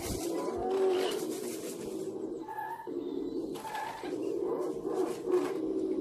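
Pigeon cooing in repeated low phrases, with a few short, higher calls in between.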